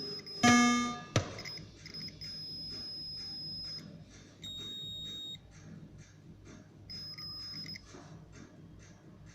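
Williams Police Force pinball machine sounding with no music: a loud buzzing tone effect about half a second in, a knock just after, then several steady high-pitched beeps. Under them runs a faint, regular 'toc toc toc' ticking, the sign of the machine's faulty sound system.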